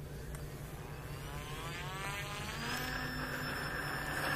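Gemini V2 model plane's twin electric motors driving counter-rotating propellers, throttling up for the takeoff roll: a whine that rises in pitch for about two seconds, then holds steady while growing louder.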